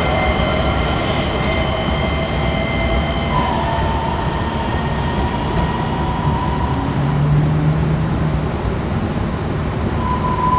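DART light rail trains on street track: a steady rumble of rolling wheels and running gear, with a high electric whine that stops a few seconds in. A steadier, lower tone follows as a second train comes on over the curves, and it returns near the end.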